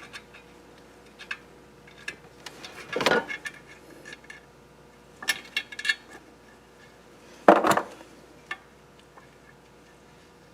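Small hard parts being handled: scattered light clicks and clinks, with louder clattering about three seconds in, again around five and a half seconds, and the loudest near the eight-second mark.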